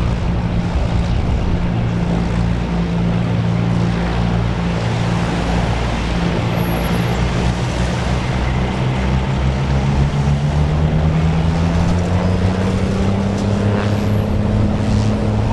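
Twin-engine propeller plane taxiing, its engines running with a steady drone; about ten seconds in, the pitch rises as the power comes up.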